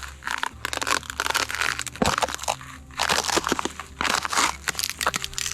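Hiking boots crunching on a frozen dirt trail, one crackly step about every second.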